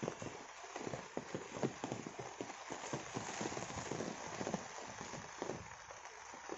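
Rain falling on broad taro leaves and wet ground: a steady hiss with many irregular taps of drops hitting the leaves.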